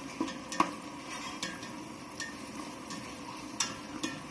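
Metal spatula stirring and knocking against a stainless steel pot, with irregular clicks and scrapes over a faint sizzle of onions and capsicum frying in oil.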